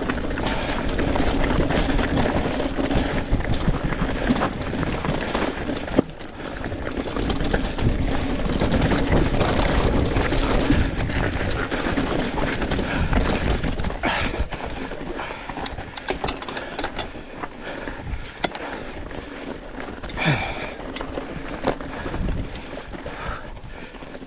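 Mountain bike tyres rolling over loose rock and gravel, with wind on the microphone. Sharp knocks and clicks of the bike over rocks come through from about halfway on, and the noise softens toward the end.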